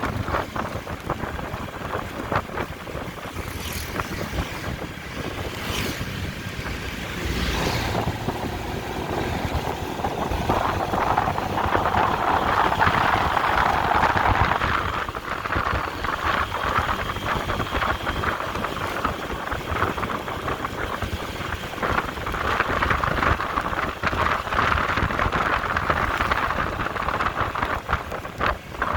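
A vehicle running along a road with wind buffeting the microphone, a steady rushing noise that swells louder twice. A few short knocks come early in the stretch.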